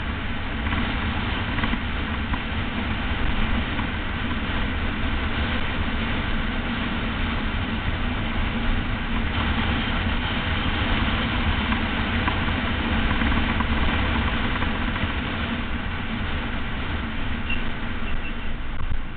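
Steady rush and low rumble of wind buffeting a bike-mounted camera's microphone, with tyre noise on asphalt, from a road bicycle descending at speed.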